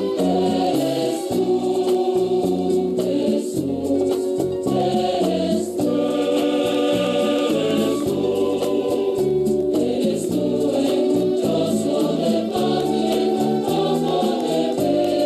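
Choir singing a communion hymn, with sustained sung notes over a low bass line.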